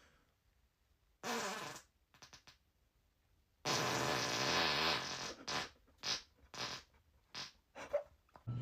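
A person farting: a short fart about a second in, then a long drawn-out one, followed by a string of about five short puffs.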